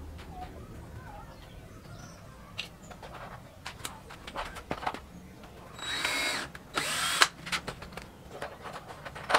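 Cordless drill run in two short bursts about a second apart, its motor pitch rising and falling, with light knocks and clicks of wooden pieces being handled around them.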